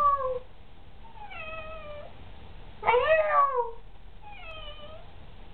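Calico cat meowing repeatedly, each meow falling in pitch, the loudest about three seconds in.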